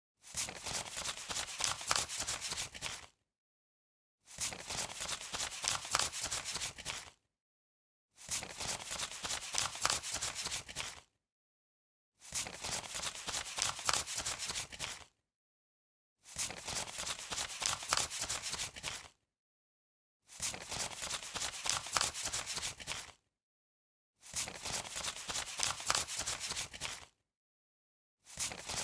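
Paper banknotes being counted: a rapid run of crisp riffling flicks about three seconds long. It repeats seven times, with a second of dead silence between runs.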